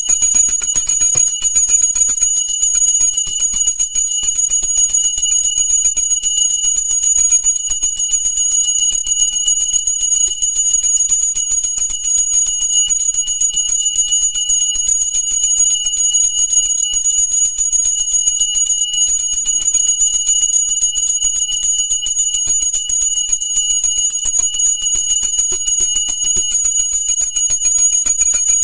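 Small brass puja hand bell rung rapidly and without pause, a bright high ringing made of quick repeated strikes.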